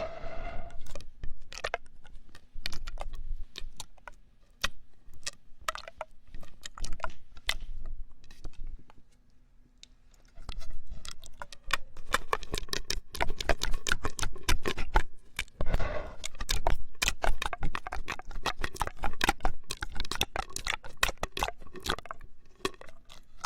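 Mouth sounds with popping candy crackling and snapping in the mouth: dense, irregular clicks and pops. They go nearly quiet about nine seconds in, then come back thicker and faster.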